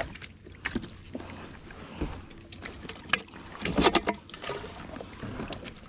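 Irregular knocks, clicks and rattles of fishing gear being handled on a plastic sit-on-top kayak, over water lapping at the hull. The loudest clatter comes about four seconds in.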